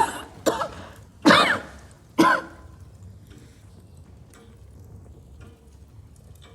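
A woman's fit of four chesty coughs in quick succession, the third longer and voiced. It is a chest cough that brings up blood.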